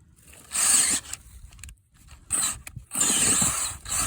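Dirt being bored and scraped out of the bait hole of a dirt-hole trap set, in three bursts: a short one about half a second in, a brief one past the middle, and a longer one near the end.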